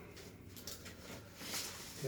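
Quiet room tone with a faint low hum and one soft, brief hiss about one and a half seconds in.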